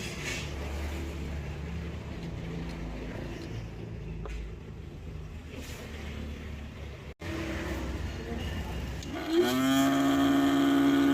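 A low, steady hum that cuts off abruptly about seven seconds in. About two seconds later music starts, with a rising tone that settles into held notes.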